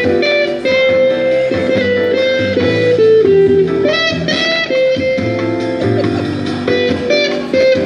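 Guitar played in a flowing melody of plucked single notes and chords, some notes held for a second or more.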